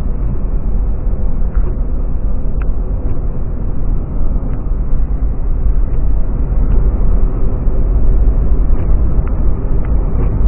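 Steady road and engine noise heard inside a moving car's cabin, heaviest at the low end, with a few faint clicks scattered through it.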